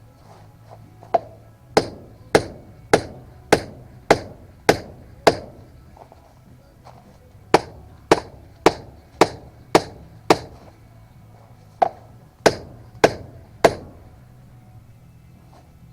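Repeated sharp striking blows, evenly paced at a little under two a second, in three runs: eight blows, a pause, six blows, a pause, then four.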